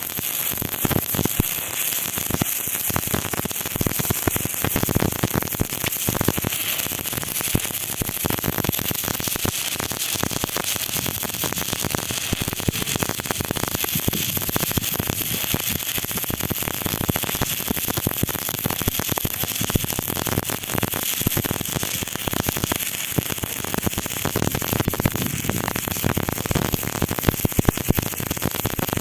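Electric arc welding on thick steel sheet: the arc crackles and sputters steadily and irregularly for the whole stretch.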